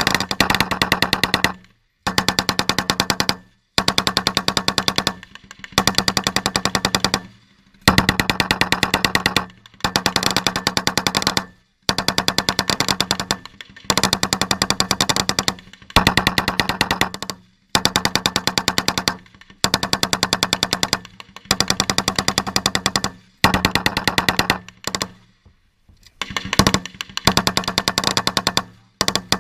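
Machine guns firing long bursts of rapid automatic fire, about fifteen bursts of a second or two each with short pauses between them.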